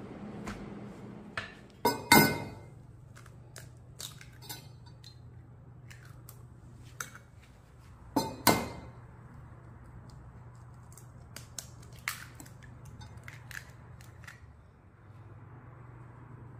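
Eggs cracked one at a time against the rim of a glass measuring jug: two sharp crack-and-clink sounds about six seconds apart, with lighter taps and clinks of glass between and after. A faint low hum runs underneath.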